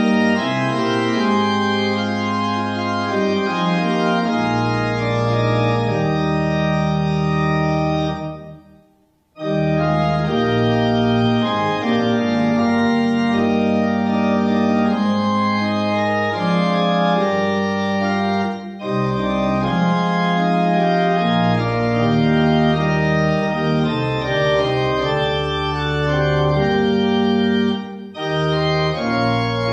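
Organ playing a hymn tune in sustained chords, with a break of about a second roughly nine seconds in.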